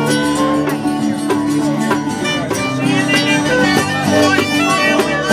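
Acoustic string band playing live: strummed guitars holding steady chords, with a sliding fiddle-like lead line played over them.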